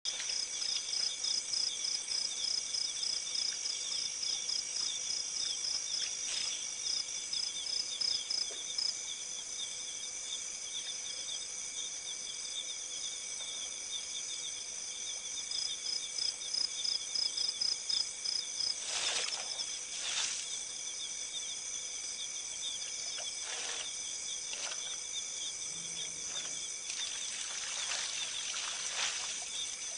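Night insect chorus: insects chirring steadily in fast, high-pitched pulsing trills. A few brief soft noises break through about two-thirds of the way in and again near the end.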